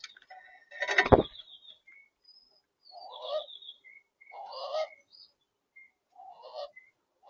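Birds at a feeder: short high chirps and three harsher, buzzy calls spaced a second or two apart, with one loud thump about a second in.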